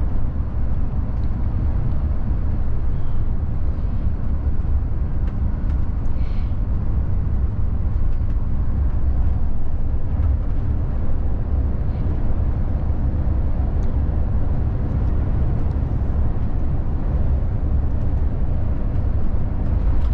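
VDL Futura coach driving on the motorway: steady low rumble of engine and road noise heard from the driver's seat.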